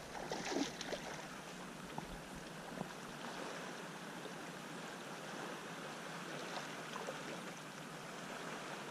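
Small waves washing and lapping at the lake shore, a steady quiet wash of water, with a few faint clicks mixed in.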